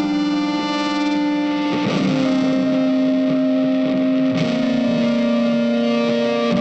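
Background music: an instrumental passage of long held notes that move to a new chord about two seconds in.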